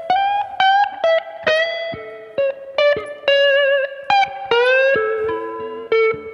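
Background music: an electric guitar plays a lead melody of plucked notes, several of them bent or slid in pitch.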